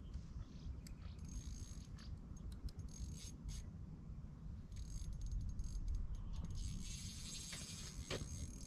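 Fishing reel clicking and whirring as line is reeled in against a hooked fish on a bent rod, in irregular runs of ticks that turn into a denser rattle near the end. Wind rumbles on the microphone throughout.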